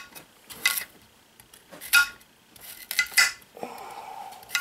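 Chef's knife chopping carrots on a marble cutting board: sharp knocks of the blade on the stone, about one a second and irregular. A faint steady tone sounds for about a second near the end.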